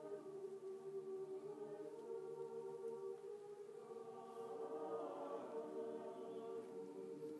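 Large honor choir singing long held chords, heard from the audience seats of a concert hall; the sound swells a little about halfway through.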